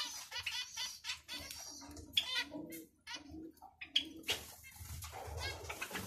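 Zebra finches calling and chirping, many short nasal calls overlapping one another, with some lower, longer calls mixed in.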